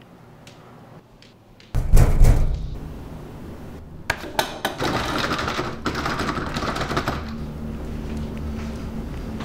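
Horror film sound design: a sudden loud low boom a little under two seconds in that dies away, then a stretch of clicks and clattering, settling into a steady low drone.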